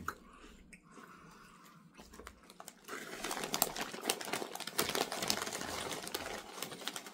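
Takis Chippz BBQ Blast potato chips being crunched while chewing: a dense run of sharp, crackly crunches that starts about three seconds in.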